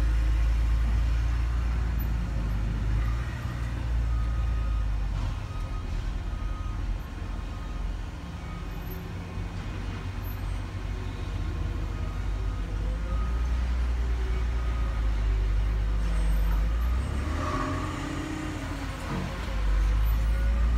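Low, steady rumble of heavy diesel machinery running, easing off about a third of the way in and swelling again near the end.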